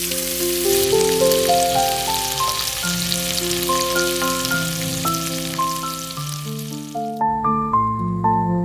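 Food sizzling and crackling in hot oil in a frying pan, under steady piano music. The sizzle stops abruptly about seven seconds in, leaving only the music.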